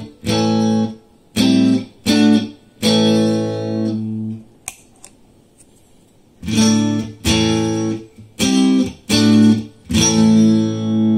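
Electric guitar playing short strummed chords through a small Fender amp, first with the Jackrabbit FTvin Fender-style preamp pedal off. After a pause with a couple of small clicks, the pedal is on for a second run of chords, and the last chord rings on with a slow wobble.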